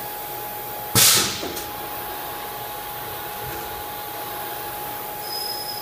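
HH Roberts TW40 CNC vertical machining center running with a steady hiss and a faint steady tone. About a second in, a sudden loud blast of air fades away within half a second and is followed by a light click.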